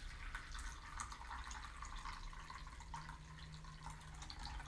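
Cold brew coffee concentrate poured in a thin stream from a jar into a paper-lined drip-coffee brew basket, a faint, steady trickle with small splashes.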